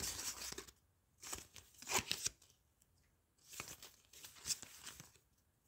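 Foil blind-bag trading-card packet being torn open and crinkled by hand, in three short rustling bursts.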